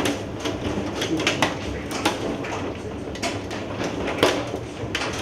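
Hailstones pelting hard surfaces: a rapid, irregular patter of sharp clicks and knocks, some much louder than others, over a constant hiss.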